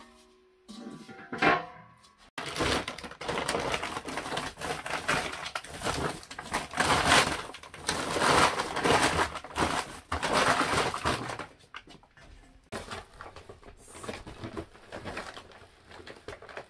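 A steel basin rings briefly as it is set down. Then a woven plastic flour sack rustles and crinkles loudly for about ten seconds as it is handled and opened, giving way to softer scraping as flour is scooped out with a small bowl.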